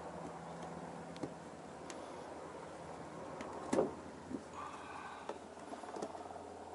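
Small hand tools handled against a plywood panel: a few light clicks, and one short scrape a little under four seconds in.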